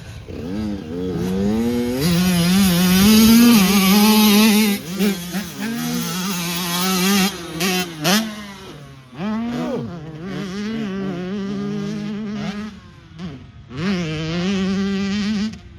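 Small engine of an off-road mini racer running hard at high revs, its pitch wavering up and down, with several sharp drops as the throttle is shut and opened again. Loudest about three to four seconds in.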